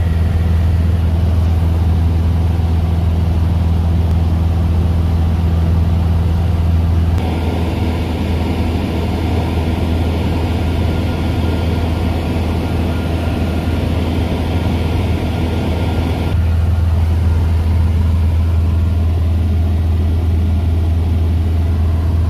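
Cessna 172's piston engine and propeller running at steady cruise power, a loud, even drone heard from inside the cabin. From about a third of the way in to roughly three quarters through, a band of hiss joins it, then drops away.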